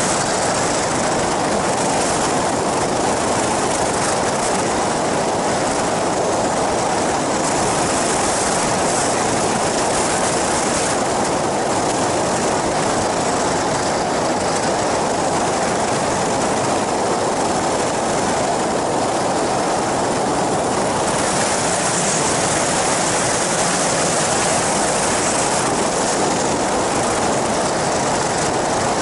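Steady drone of an ultralight flying boat's engine and pusher propeller in flight, mixed with heavy wind rush over the microphone.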